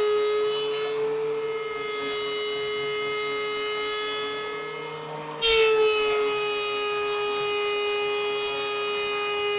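Small CNC router spindle (LUNYEE 4040 Pro) running with a steady high whine while routing wood. About five seconds in it turns suddenly louder and rougher as the bit cuts into the wood, then holds steady.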